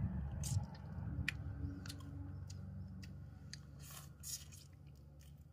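Small crisp clicks and crackles of cooked shrimp shells being peeled by hand and bitten, the loudest about four seconds in, over a low rumble that fades away.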